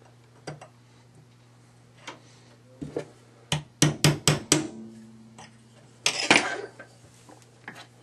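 Roll pin being tapped into an AR-15 charging handle latch with a small hammer and roll pin punch: five quick, sharp metallic taps about a quarter second apart near the middle, with a few lighter clicks before them and a louder clatter about six seconds in.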